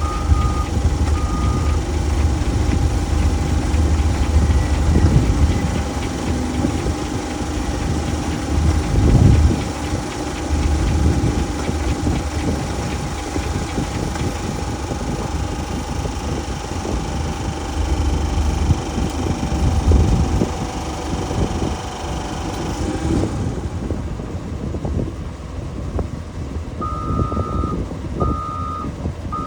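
Heavy equipment running, with a backup alarm beeping at the start and again near the end. A steady whining hum over the engine rumble cuts out about three-quarters of the way through.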